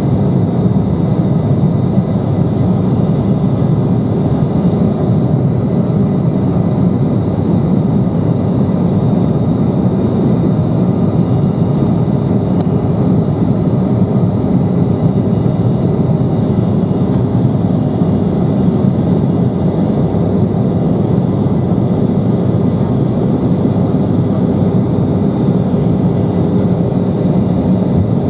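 Steady cabin noise inside an Embraer E170 climbing out: a low, even rushing hum from its GE CF34-8E turbofan engines, with a few faint steady whining tones above it.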